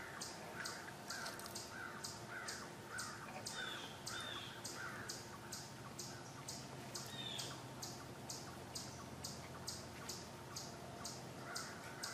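An animal calling in a steady series of short, sharp notes, about two a second, with a few brief higher bird calls about four and seven seconds in.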